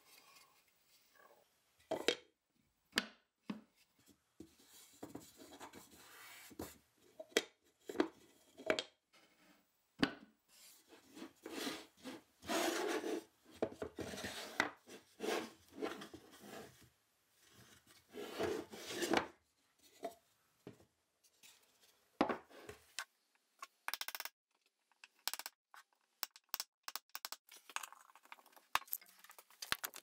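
Plywood birdhouse panels handled and fitted together by hand: wood sliding and rubbing against wood, with scattered light knocks and taps as the pieces are set in place.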